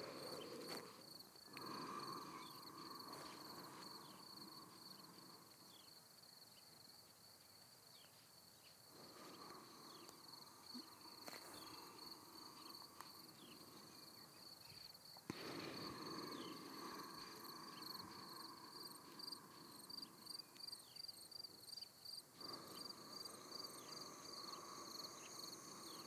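Faint, steady chirping of crickets, with a soft noise that swells and falls away every six seconds or so.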